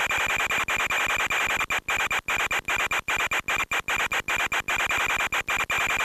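Steady, harsh static-like hiss with a thin high whine running through it, cut by many brief dropouts, as on the audio of an FPV flight recording.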